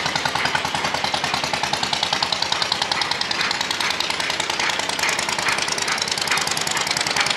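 A diesel engine running steadily with a rapid, even knocking beat.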